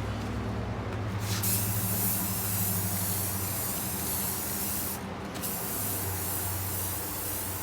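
Aerosol spray can of clear coat hissing as it is sprayed onto a painted car hood. The spray starts about a second and a half in, stops briefly around five seconds, then goes on again.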